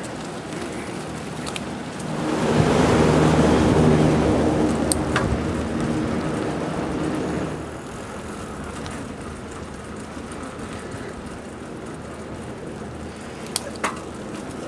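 A motor vehicle passes by, its engine note and tyre noise swelling over a few seconds and then fading, over steady outdoor traffic noise. A couple of sharp clicks come near the end.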